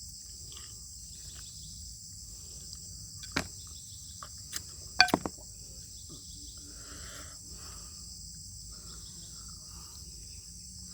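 A few sharp clicks and quiet chewing from eating beef bone soup, the loudest clicks about five seconds in, over a steady high-pitched hiss.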